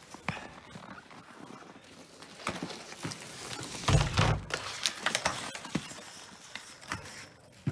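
Skis and boots on snow and metal: scattered knocks, scrapes and crunching, with a heavy thud about four seconds in as a skier lands on a snow-covered metal waste bin.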